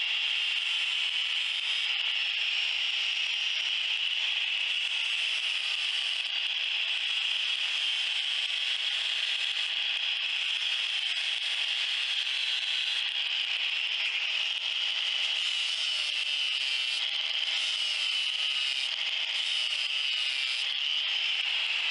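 Electric angle grinder running steadily with a high whine, its disc grinding on steel clamped in a vise.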